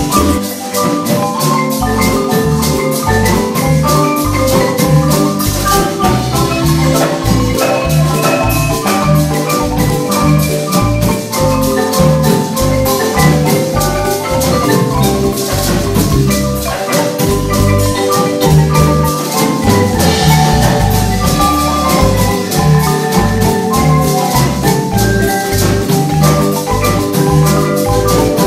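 Marimba music: quick runs of mallet notes over a steady low beat with drums.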